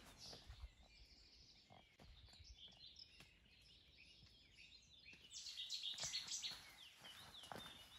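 Small birds singing, a quick run of high chirps that grows louder and busier about five seconds in, with faint footsteps on a stony path at the start and near the end.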